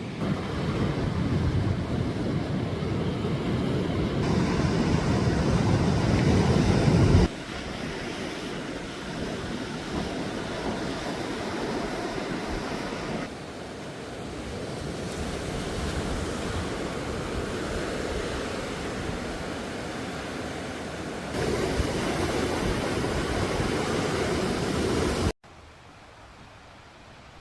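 Sea waves washing onto the shore, with wind buffeting the microphone. The sound comes in several spliced stretches that change level abruptly: loudest and most rumbling for the first seven seconds, then much quieter for the last two seconds.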